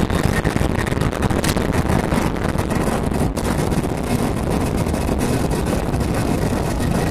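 Boat under way at sea: a steady, loud rush of engine noise with wind buffeting the microphone.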